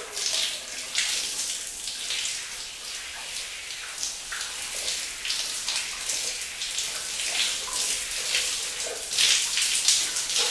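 A shower running: hot water spraying and splashing unevenly, a little louder near the end.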